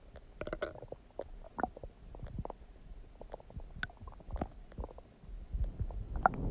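Human stomach gurgling: a run of irregular small pops, squelches and bubbling rumbles, a little louder near the end.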